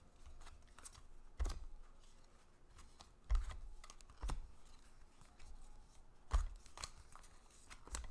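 Baseball cards being handled and set down on a table: several short taps with soft thuds and light rustling between them.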